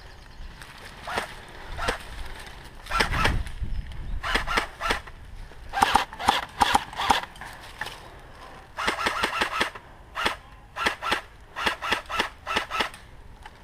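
Airsoft guns firing: sharp cracking shots, some single and some in quick strings of several shots, through the whole stretch, with a heavier burst about three seconds in.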